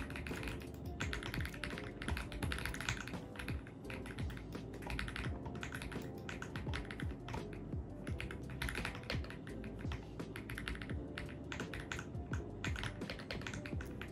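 AULA F75 mechanical keyboard being typed on, keys clacking in quick runs of a second or two with short pauses between. Background music plays underneath.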